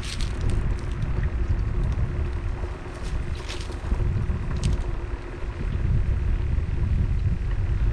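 Wind buffeting the microphone: a low, gusting rumble that rises and falls, with a few faint clicks in the middle.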